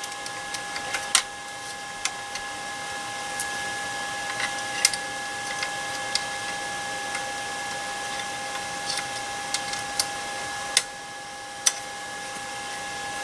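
Scattered light clicks and taps of hands and a tool working a belt carriage and its tensioner screws on an FLSun Q5 delta 3D printer, over a steady high-pitched hum.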